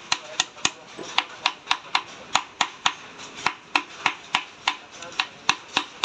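Rapid, even hammer taps, about four strikes a second, knocking a part into place on a Yamaha Fascino scooter engine during reassembly.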